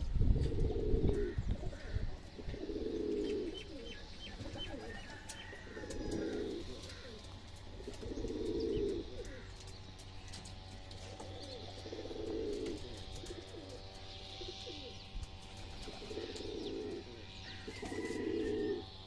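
Pigeon cooing: about eight low, short coos at irregular intervals, with faint chirps of small birds higher up.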